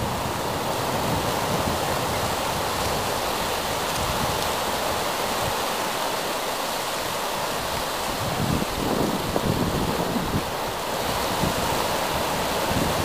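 Small ocean waves breaking and washing over shallow water: a steady rush of surf. Low gusts of wind buffet the microphone now and then, most clearly a little past the middle.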